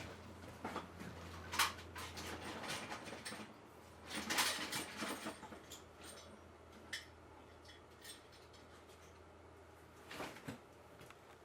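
Scattered clicks, knocks and short rattles of objects being handled, loudest about a second and a half in and again around four to five seconds in, over a low steady hum that fades out about ten seconds in.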